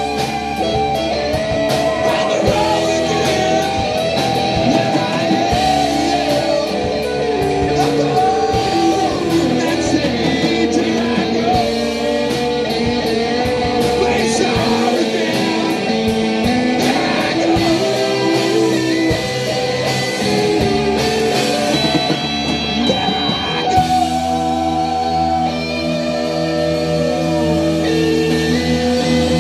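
Live rock band playing: electric guitars and a drum kit, with a lead line bending up and down in pitch; the arrangement changes about three quarters of the way through.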